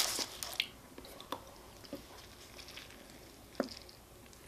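A foil burger wrapper crinkles briefly as the burger is lifted out of it. Then come quiet close-up chewing and biting into a Wendy's Baconator, heard as a few faint separate clicks and smacks.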